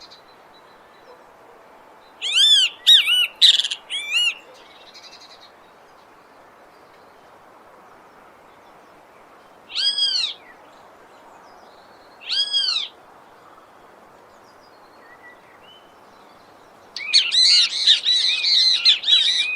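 Bem-te-vi flycatcher calling in short bursts of clear, arching notes: a cluster a couple of seconds in, two single calls in the middle, and a long, busy run of calls near the end, over a faint steady background hiss.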